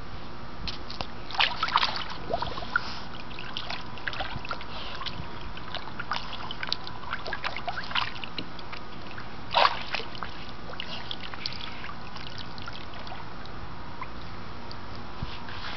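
Water splashing and dribbling in a small wading pool as a large dog moves about in it, in scattered splashes, the biggest about a second and a half in and again near ten seconds, over a steady background hiss.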